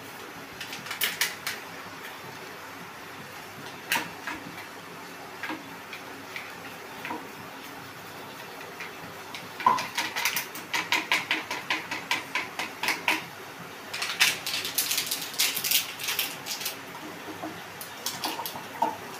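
Small plastic sachets crinkling and crackling as they are handled and torn open, with sparse clicks early on and quick runs of crackling about ten seconds in and again a few seconds later, over a steady low hum.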